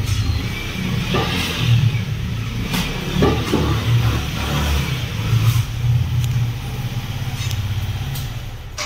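Motorcycle engine running at low speed while the bike is ridden slowly and parked, the engine note rising and falling with the throttle. The engine cuts off near the end.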